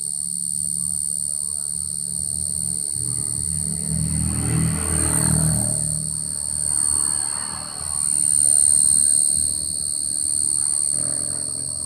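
A cricket trilling without a break from inside a small hole, a steady high-pitched buzz. Midway a low rumble swells and fades, loudest about nine seconds in.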